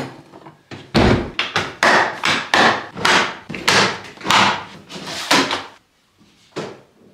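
Hard plastic tool boxes and cases being handled: a quick string of about a dozen sharp knocks and clacks, a near-silent pause, then one or two more near the end.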